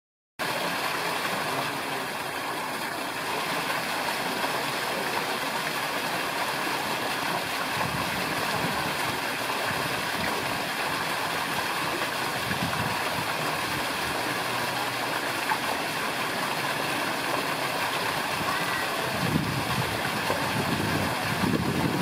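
Steady rushing background noise, with low gusts of wind buffeting the microphone about two-thirds of the way in and again near the end.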